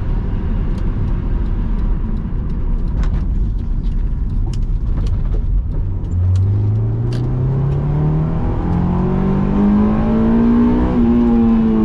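Honda S2000's JDM F20C inline-four running at low revs under a steady rumble of road noise, then, about six seconds in, accelerating hard, its revs climbing steadily in one gear into VTEC before levelling off near the end.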